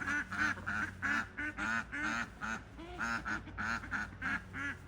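A group of domestic ducks quacking in a rapid, continuous run of short calls, several a second: happy duck noises, which the keeper says normally mean they have found good bugs or plants.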